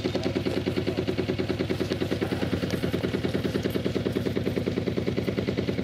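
An engine running steadily with a rapid, even throb.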